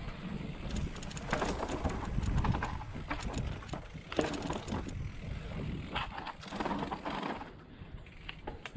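Mountain bike rolling along a dirt singletrack: tyre rumble and wind buffeting on the bike-mounted camera, with irregular rushes of noise. It gets quieter near the end as the bike slows almost to walking pace.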